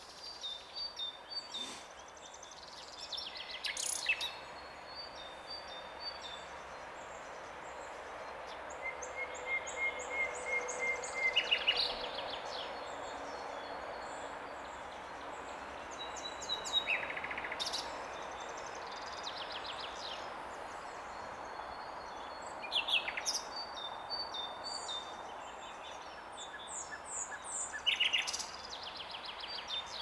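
Several songbirds singing: short trilled phrases that recur every few seconds, thin high notes, and a run of evenly repeated notes about ten seconds in, over a steady background rush.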